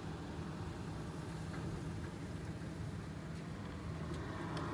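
A steady low mechanical hum, with a few faint ticks over it.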